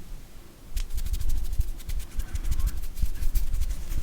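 Slime being squished and played with by hand, giving a dense run of small crackling clicks and pops over low handling thumps, starting just under a second in.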